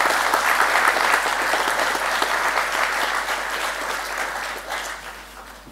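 Audience applauding at the end of a talk, many hands clapping, dying away near the end.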